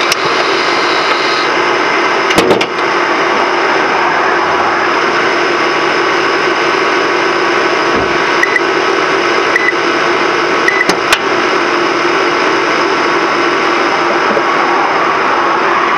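Toyota Auris Hybrid Synergy Drive powertrain heard from inside the engine bay: a loud, steady rush of noise with several steady whining tones from the 60 kW electric motor and petrol engine. Sharp knocks about two and a half seconds in and again about eleven seconds in.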